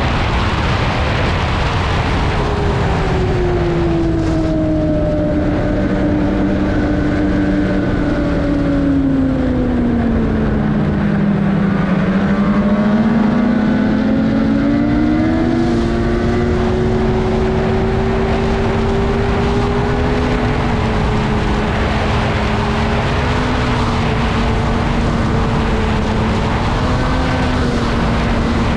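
Polaris Indy XC 850 snowmobile's two-stroke twin engine running under way. Its pitch falls over several seconds as it eases off, climbs again about halfway through and then holds fairly steady, over a constant rushing noise.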